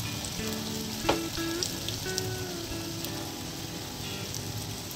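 Chaul bara (rice-batter fritters) deep-frying in hot oil in a kadai, a steady sizzle throughout. Soft instrumental background music plays over it, and there is a single knock about a second in.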